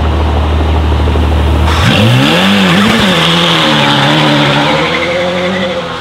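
Mercedes-AMG GT Track Series' 4.0-litre twin-turbo V8 holds a steady low note, then a little under two seconds in the revs jump as the car launches. The rear tyres spin and squeal, and the engine note wavers up and down as it pulls away.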